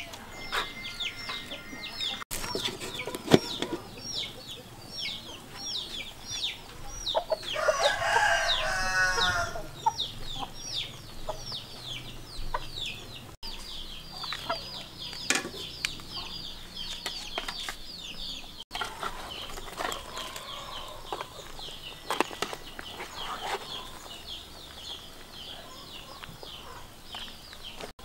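Chickens: a rooster crows once, about eight seconds in, over high falling peeps repeated several times a second. A few sharp knocks of pots and utensils come through as well.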